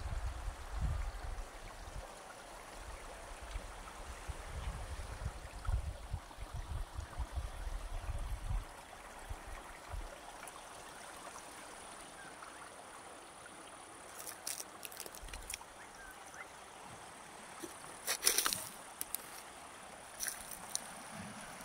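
Seashore ambience: a steady wash of water on stones. Gusts of wind rumble on the phone's microphone for the first eight seconds or so. A few sharp clicks and crunches come in the second half, the loudest a little before the end.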